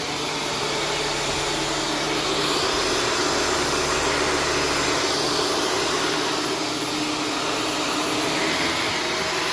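Shark upright vacuum cleaner running steadily while vacuuming carpet, a constant motor whine and rush of air.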